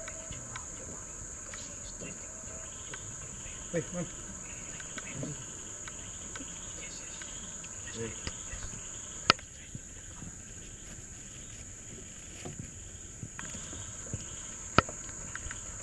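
Steady high-pitched chorus of rainforest insects, with two sharp knocks standing out, one about halfway through and one near the end.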